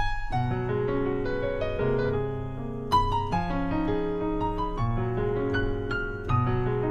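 Yamaha Montage M playing a concert grand piano patch: full chords held and sustained, with inner notes moving under them. Fresh chords are struck about three seconds in and again near the end.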